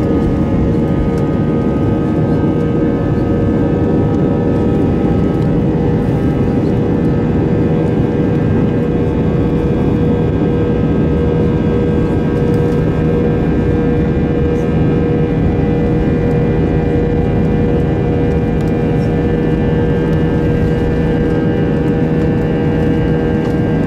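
Airbus A320's IAE V2500 turbofan engines at take-off thrust, heard from inside the cabin during the take-off roll: a loud, steady roar with several steady whining tones held on top.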